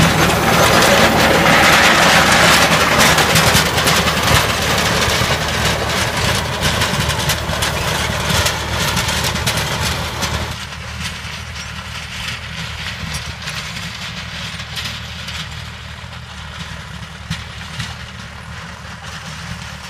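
Mahindra 295 DI Turbo tractor's diesel engine working under load as it pulls a Maschio rotavator churning dry soil. Loud up close, then much fainter from about halfway through as it moves away, leaving mainly the low engine note.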